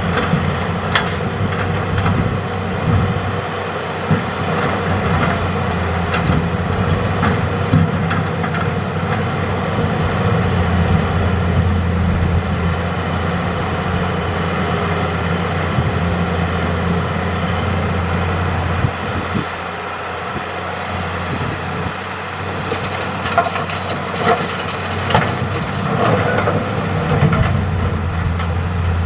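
Hitachi hydraulic excavator's diesel engine running steadily under load as it digs and loads river rock, with scattered knocks and clatter of rock. The clatter comes in a cluster near the end.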